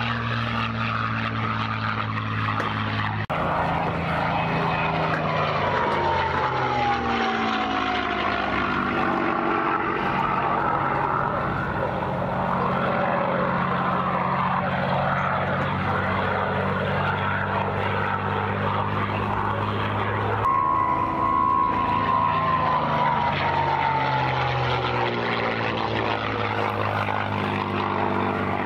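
North American Mustang's Packard Merlin V-12 engine and propeller passing in flight, a steady drone whose pitch falls twice as the aircraft goes by. The sound changes abruptly about three seconds in and again about twenty seconds in.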